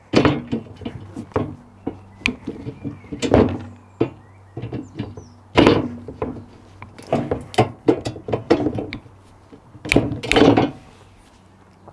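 Irregular wooden knocks and thuds as pallet-wood boards and tools are handled and set down, the loudest about three and a half, five and a half and ten seconds in.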